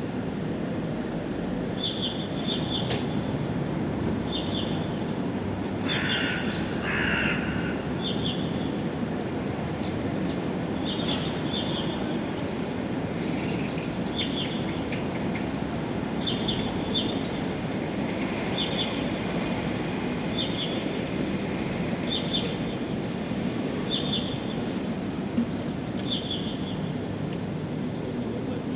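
A songbird repeating a short, high chirped phrase about every second or two, over a steady low rushing background noise.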